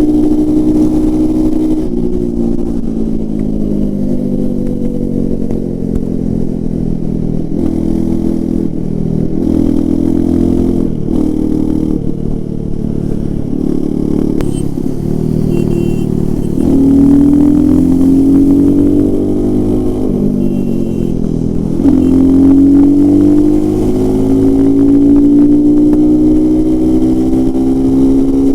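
Royal Enfield Himalayan 450's single-cylinder engine and exhaust under hard riding: engine pitch high at first, falling for a few seconds, then rising and dropping in short steps, climbing again past the middle, dipping briefly, and pulling up once more through the last third.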